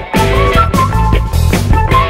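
Loud background music with a steady beat and a melody line.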